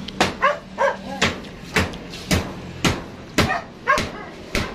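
A dog barking over and over, short sharp barks about two a second.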